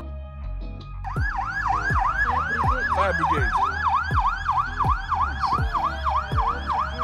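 Sirens of a fire engine and an ambulance in traffic. A fast yelp siren, about four sweeps a second, cuts in about a second in, with a slower wailing siren beneath it, over a low traffic rumble.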